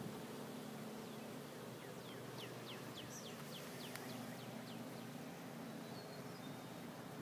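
Quiet outdoor ambience: a steady low hum under faint hiss, with a run of about ten quick, falling chirps from a small animal in the middle.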